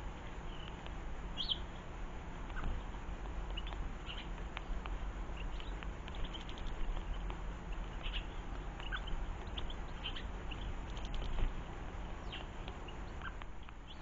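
Small garden songbirds calling, with short high chirps and cheeps scattered throughout, over a steady low rumble. A few sharp clicks are heard in the middle and later on.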